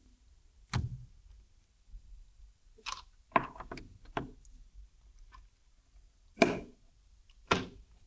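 A handful of sharp knocks and clicks: one about a second in, a quick cluster of clatters around three to four seconds in, and two more single knocks near the end.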